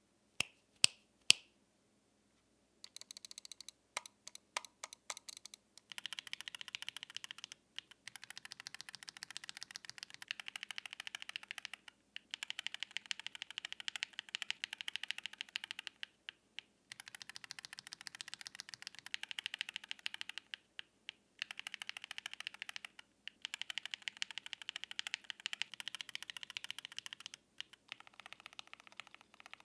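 Mode Eighty mechanical keyboard with stock Mode Reflex linear switches being typed on. It starts with three sharp single clicks and a few slow keystrokes, then goes to fast continuous typing in long runs separated by short pauses.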